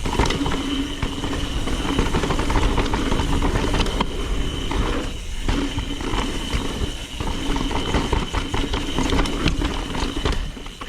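Mountain bike riding down dirt singletrack: wind rush on the microphone and tyres rumbling over the dirt, with a steady buzz from the rear hub freewheeling while coasting that breaks off briefly twice around the middle.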